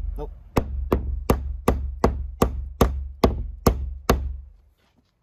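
Claw hammer driving a framing nail into OSB wall sheathing, about ten evenly spaced blows a little under three a second, stopping about four seconds in. The nail had been left standing proud by a pneumatic framing nailer and is being knocked flush.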